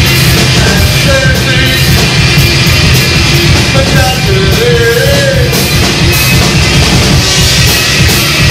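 Rock band playing loud punk rock live, the drums keeping a steady beat.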